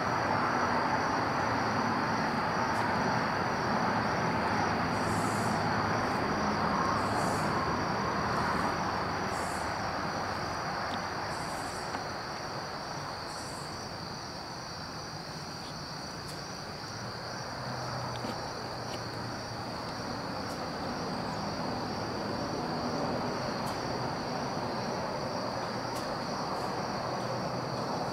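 Woodland ambience: a steady, pulsing chorus of crickets over a low rushing background that slowly fades and swells again. A few short, higher chirps come about every two seconds in the first half.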